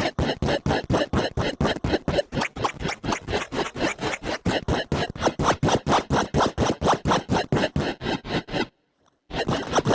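Eurorack modular synthesizer firing a fast, even train of short noisy percussive pulses, about five or six a second. The pulses cut out for about half a second near the end, then start again.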